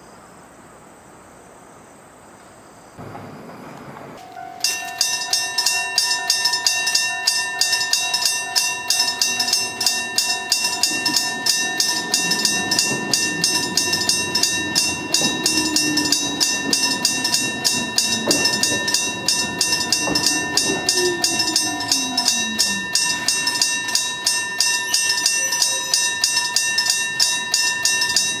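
Electric level-crossing bell, a metal bell struck by an electric striker, starting about five seconds in and ringing in fast, even strokes with a steady ringing tone. Partway through, a lower whine from an arriving train falls in pitch as it slows.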